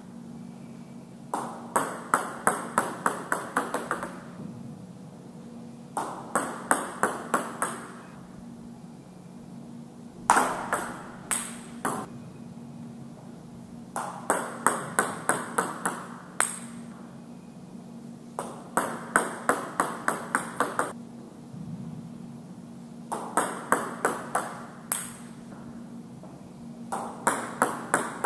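Table tennis serves repeated about every four seconds: sharp clicks of the plastic ball off the paddle and table, then runs of bounces that come quicker and quicker and die away as the ball settles. A steady low hum runs underneath.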